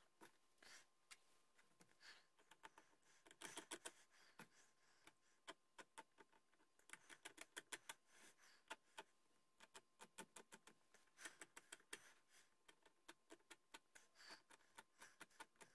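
Faint, quick ticking and scratching of a small pointed hand tool worked against the bone tip of a ramrod, coming in short bursts of rapid clicks.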